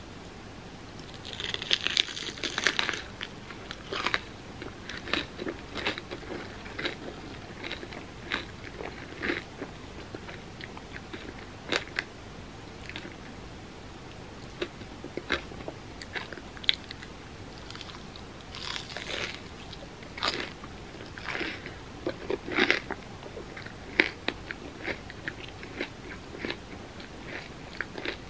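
Close-up eating sounds: someone biting into and chewing crispy mochi fried bread, with sharp crunches at each bite. Dense clusters of crunching come about two seconds in and again about twenty seconds in, with single crackles between them.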